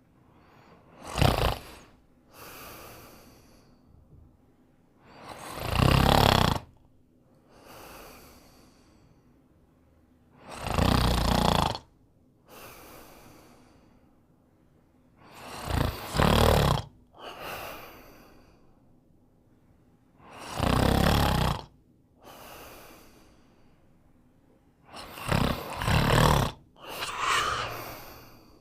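Snoring in slow, even cycles: six loud snores about five seconds apart, each followed a second or so later by a softer breath.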